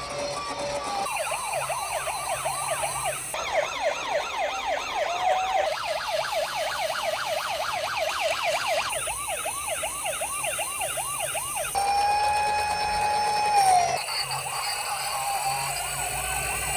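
Emergency vehicle sirens going in a rapid yelp of about four rise-and-fall sweeps a second, the sound changing abruptly every few seconds. About three quarters of the way through there is a steady held tone that falls off at its end.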